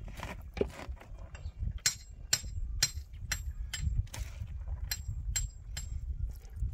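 Sharp metallic clicks, about two a second, as rice is spooned into a metal cooking pot over fried cabbage: a metal utensil tapping the pot. A low rumble runs underneath.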